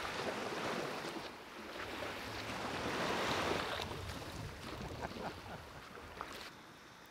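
Small waves washing onto a sandy beach, with some wind on the microphone; the surf noise swells to its loudest about three seconds in, then eases off.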